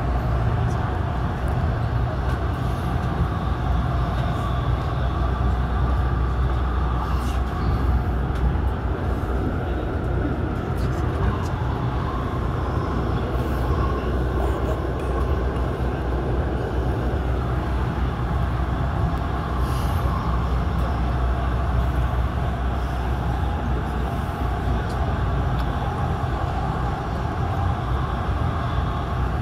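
Steady running noise heard inside an Airport Railroad all-stop commuter train at speed: a low rumble of wheels on rail, with a few faint ticks.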